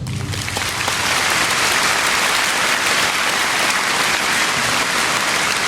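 Audience applauding steadily, the last ring of the orchestra's final chord fading out in the first moment.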